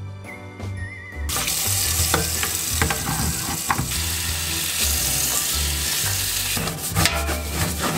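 Tap water running into a stainless steel sink, splashing over a scrub brush and hand as they are rinsed. It starts about a second in and eases off near the end, followed by a few light knocks, over background music.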